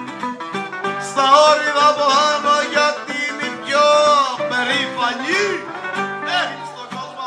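Live Greek folk music: acoustic guitar and other plucked string instruments playing, with a voice singing loudly from about a second in until about four seconds, then shorter sung phrases over the playing.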